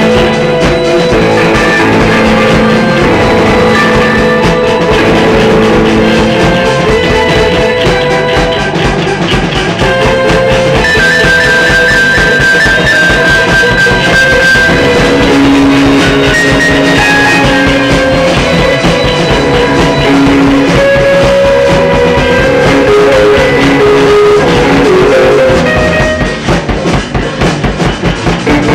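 Live band playing rock: guitar, keyboard and drums, with long held notes over a steady beat. Near the end the music breaks into short rhythmic stabs.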